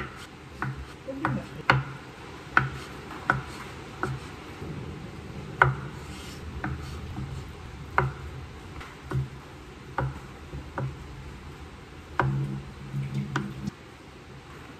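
Kitchen knife cutting through a block of oncom (fermented soybean cake), the blade knocking on a wooden cutting board about once a second, at an uneven pace.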